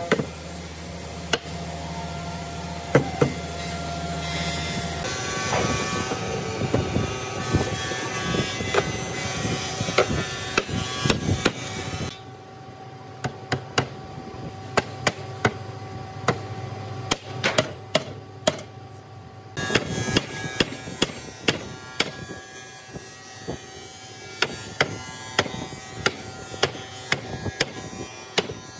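Hammer blows on wood: many sharp, irregular knocks in several stretches, at times two or three a second. A steady electric hum sounds under the first five seconds, then stops.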